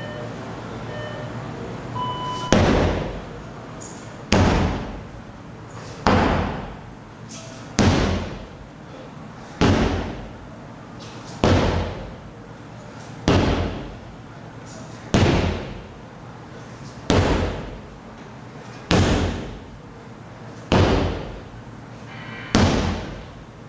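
Short timer beep, then a sledgehammer struck down hard and steadily, about one heavy blow every two seconds, each hit ringing out and dying away.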